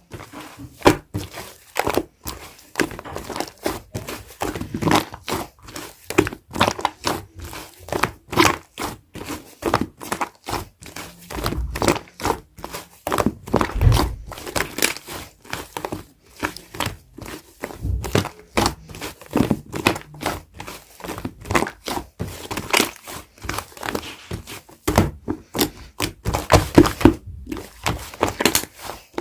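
Hands squeezing, pressing and stretching slime, giving a fast, irregular run of sticky clicks, crackles and small pops, with a few duller squelching thuds.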